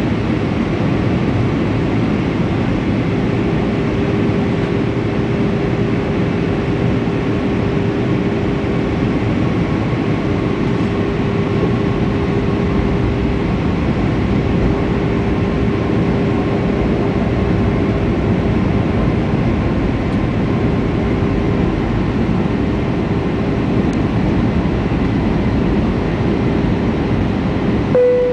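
Steady roar of jet engines and rushing air heard inside the cabin of an Airbus A320-family airliner on approach, with a steady engine hum underneath. A short tone sounds right at the end.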